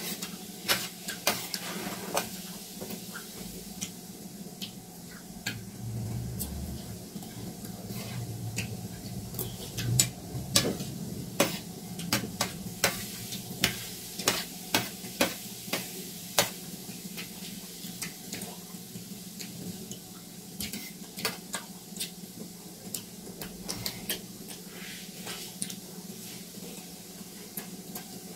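Steel spoons scraping and clinking against stainless steel plates of raw rice in water, mixed with the crunch of hard raw rice grains being chewed, in many sharp irregular clicks.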